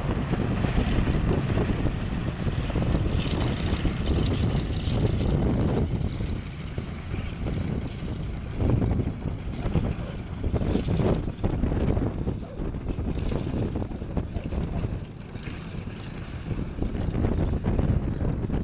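Douglas DC-3 Dakota's twin radial piston engines running as the aircraft taxis, a rough, steady propeller drone that swells and eases a little in loudness.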